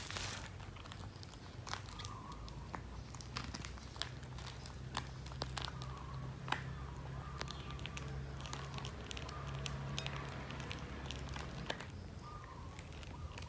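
Eating at a table by a baby macaque and a woman: scattered small clicks and crackles, over a low steady hum.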